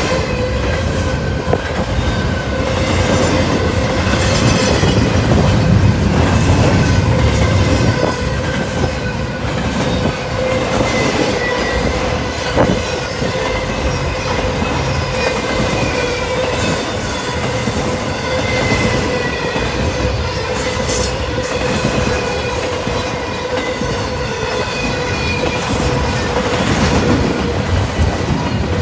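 Double-stack intermodal freight cars rolling past close by. The wheels rumble and clack on the rails under a steady, high-pitched wheel squeal.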